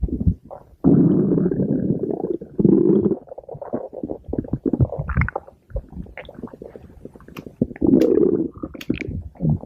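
Stomach growling: loud gurgling rumbles about a second in, around three seconds and again near eight seconds, with small squelching gurgles between.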